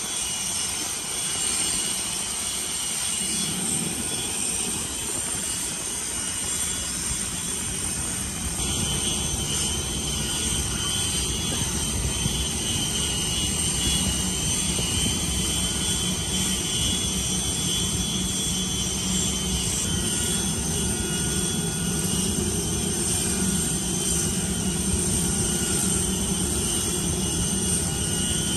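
Steady jet turbine noise: a continuous rumble with several high, even whining tones over it, getting a little louder about eight seconds in.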